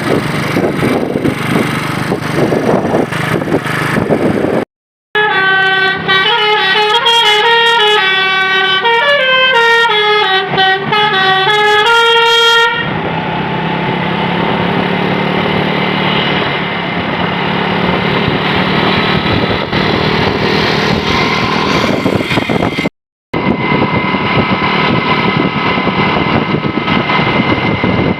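Bus 'telolet' musical air horn playing a winding multi-note tune for about eight seconds, starting about five seconds in, its several tones stepping up and down in pitch together. Before and after the tune there is the steady noise of a large vehicle running.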